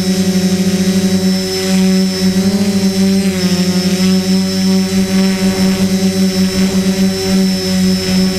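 Multirotor drone's electric motors and propellers humming steadily while it hovers, heard from its own onboard camera, with a fast pulsing beat in the level and the pitch dipping slightly now and then as it shifts position.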